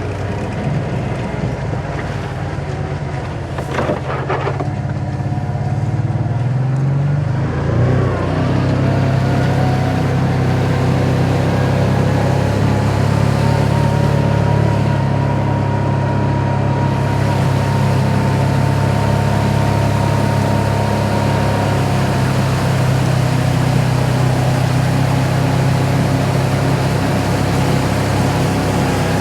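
Side-by-side UTV engine running while riding. The engine's pitch rises about seven seconds in, then holds at a steady drone.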